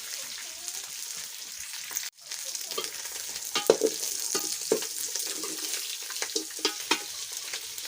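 Pieces of boiled chicken frying in their own fat in a pan, sizzling steadily, with scattered taps and scrapes as they are stirred and turned. The sound briefly cuts out about two seconds in.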